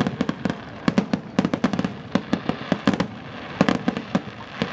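Aerial fireworks going off in quick succession: many sharp, irregular bangs and crackling pops, several a second.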